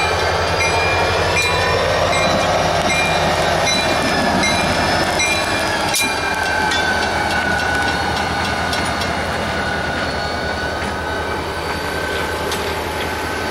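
A diesel locomotive's engine runs steadily as it rolls slowly over a road grade crossing. The crossing signal's bell dings over and over at an even pace, and a thin whine drifts slowly in pitch.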